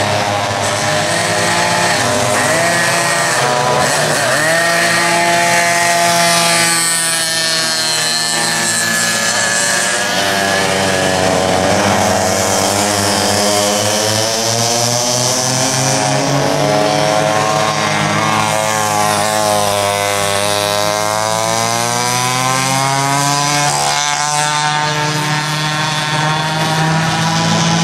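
Several vintage 6.1-cubic-inch two-stroke kart engines racing, a high buzz from more than one engine rising and falling in pitch as the karts accelerate, brake and pass. Two karts go by close in the middle, where the sound is at its fullest and the pitch swoops down and back up.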